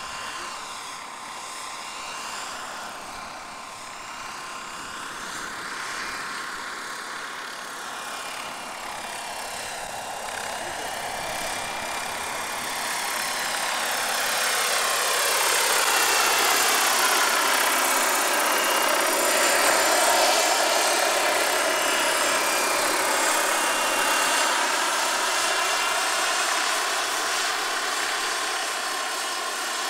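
Radio-controlled scale model of a Bell 47G-3B-1 helicopter in flight, its rotor and motor running steadily. The tone sweeps slowly as it moves, and it grows louder from about halfway through.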